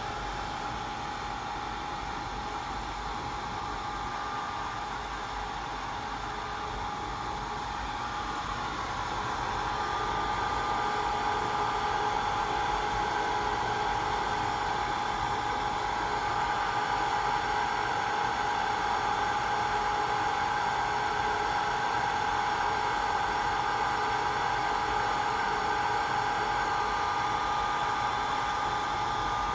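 Hot-air blower and fans of an automatic BGA rework station running steadily during a staged heating cycle: a rush of air with a steady whine, growing a little louder about a third of the way in.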